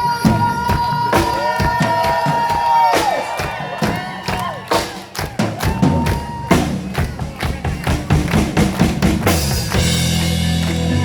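Live rock band playing: scattered drum-kit hits under a held lead line that bends in pitch, then a cymbal crash with bass and full chords coming in near the end.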